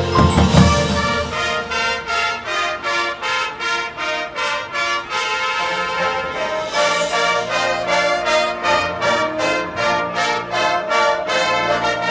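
High school marching band playing, brass leading: a loud accented hit about half a second in, then a run of short detached notes about three a second, another accent near the middle, and held low brass notes under repeated upper notes.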